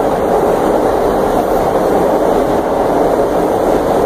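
Vintage R1/R9 subway car running along the line, heard from inside the car: a loud, steady running noise that holds even throughout.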